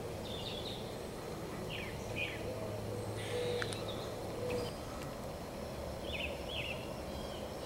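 Outdoor ambience of woods: a steady low hiss with faint, short bird chirps scattered through it, coming in pairs about a second in the middle and again near the end.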